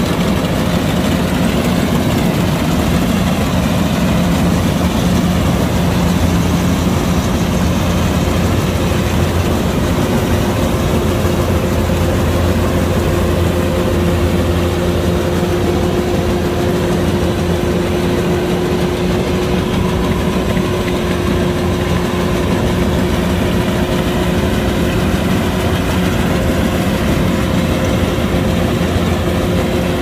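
Kubota DC-105X combine harvester's diesel engine running steadily: a constant low drone with a few steady whining tones above it.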